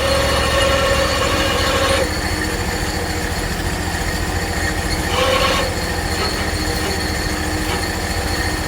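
Hud-son HFE30 portable bandsaw mill running, its band blade cutting through a large black cherry log over a steady motor drone. A whine rises over it for the first two seconds and comes back briefly about five seconds in.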